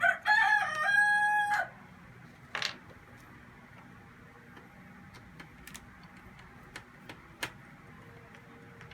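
A rooster crowing once, a loud call of about a second and a half that steps up in pitch and holds. A few faint clicks and knocks follow.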